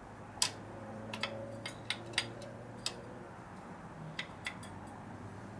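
Scattered sharp metallic clicks and clinks of steel transmission parts being handled and fitted inside the aluminium case of a Borg Warner T5 five-speed gearbox. The loudest comes about half a second in, the rest are spread over the next four seconds, over a low steady hum.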